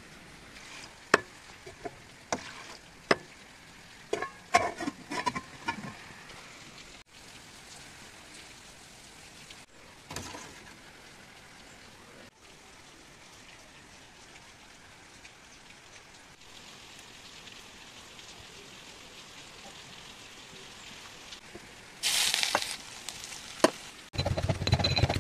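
Cooking on a gas stove. Sharp clinks and knocks of utensils come over the first few seconds, then a long steady faint hiss, then a louder rush of noise near the end.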